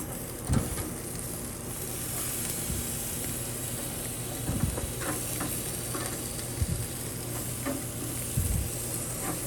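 Filet mignon steaks sizzling steadily on a hot propane grill, with a few short knocks and scrapes as the steaks are turned 90 degrees on the grate.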